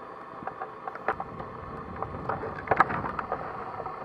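Footsteps crunching through deep snow: irregular crackling crunches, with a louder crunch about three quarters of the way in.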